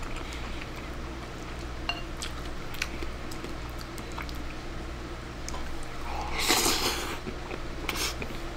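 Wooden chopsticks clicking against a ceramic rice bowl as a soft egg-and-rice bowl is shovelled into the mouth and chewed, with a short louder slurp about six and a half seconds in.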